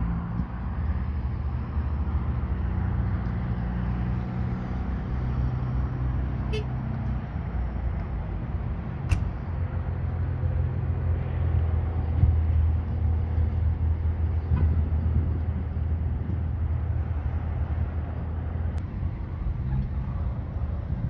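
Engines of parked pickup trucks idling: a steady low hum, with a couple of faint clicks.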